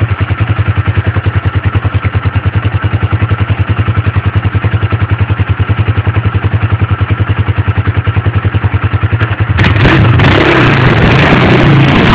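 Quad bike (ATV) engine idling with a steady, even pulse. About nine and a half seconds in it gets suddenly louder and rougher as it is revved up.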